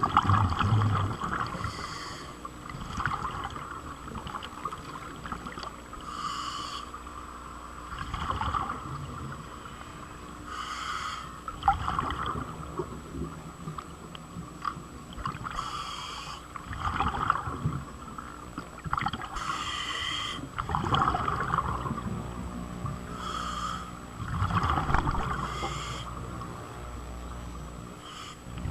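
A person breathing underwater, with bubbling, one breath every two to four seconds over a steady low hum.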